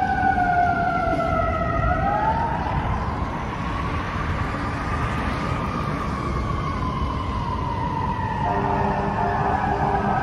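Emergency vehicle siren wailing: the pitch slides down, sweeps up about two seconds in, then falls slowly. Street traffic rumbles underneath.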